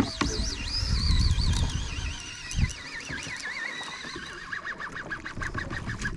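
Fishing reel drag (Shimano Talica) whining as a large hooked shark pulls line off the spool. The wavering whine falls in pitch as the run slows, and near the end it breaks into separate clicks. A low rumble runs through the first two seconds.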